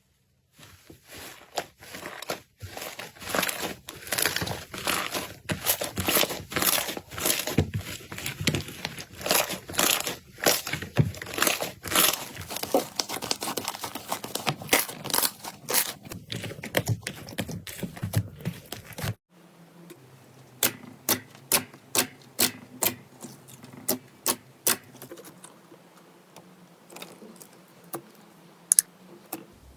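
Slime being worked, with dense crackling and popping. After a sudden change about two-thirds of the way through, it turns to slower sharp pops, a few a second.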